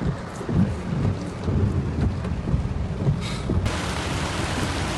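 Thunderstorm: heavy rain hissing over a deep, uneven low rumble. About three and a half seconds in, the rain abruptly becomes louder and brighter.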